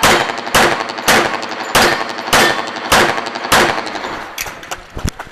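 Seven pistol shots from a 1911 single-stack pistol in .45 ACP, fired in a steady string about 0.6 s apart, each with a short echo, followed by a few fainter clicks and knocks near the end.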